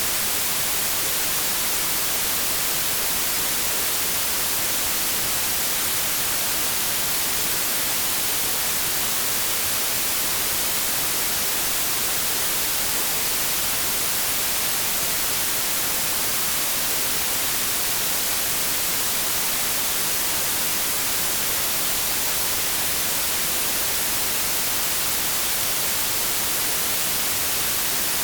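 Steady electronically generated 'inverse' white noise: an even, unchanging hiss that is weighted toward the treble, much stronger in the highs than in the bass.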